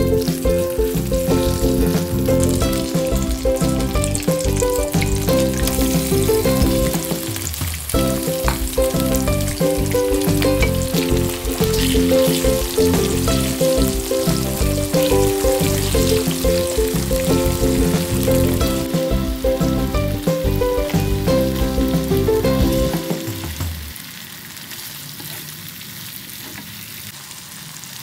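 Sliced potatoes and squid frying in hot oil in a wok, a steady sizzle, stirred with a wooden spatula. Background music plays over it and stops about 23 seconds in, after which only the sizzling is heard.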